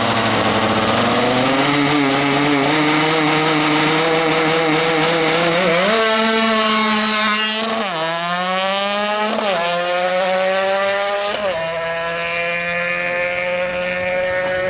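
Yamaha F1ZR two-stroke engine, bored to 128 cc, running hard at high revs. The pitch holds high for several seconds, then three times it drops sharply and climbs again. The sound cuts off suddenly at the end.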